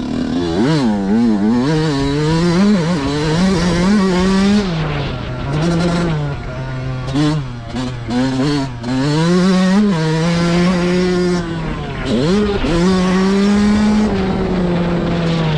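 Yamaha motocross bike's single-cylinder engine revving up and down while being ridden hard. The pitch climbs and drops again and again with the throttle, with a sharp drop and quick climb about twelve seconds in.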